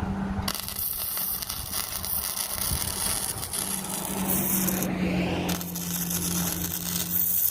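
MIG welding arc crackling and hissing in two runs: the first starts about half a second in and stops at about five seconds, the second strikes again shortly after and runs on. A steady low hum sits beneath.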